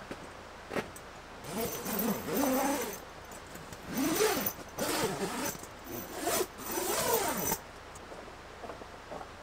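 A tent zipper being pulled in three long runs of about a second and a half each, with short pauses between them. The pitch of each run rises and falls as the pull speeds up and slows down.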